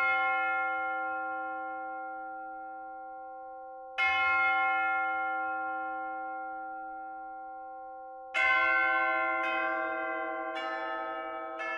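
Large bell struck and left to ring out, once at the start and again about four seconds in, each fading slowly. From about eight seconds a quicker run of bell strikes at different pitches follows, about one a second, like a chime.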